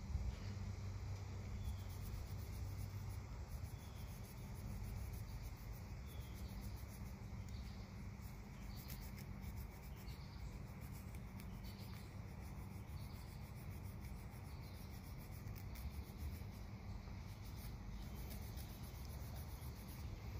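Scotch-Brite-type abrasive pad rubbing the small metal door-stop plate in short, repeated scratchy strokes, scuffing the surface rough so the JB Weld epoxy will bond.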